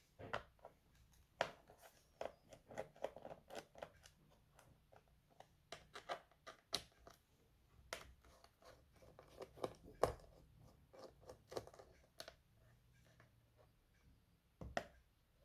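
Quiet handling noises of a laptop and small parts: irregular sharp clicks, taps and short scrapes of hard plastic and metal, with a cluster of rapid small scratches about three seconds in and louder knocks around ten seconds in and near the end.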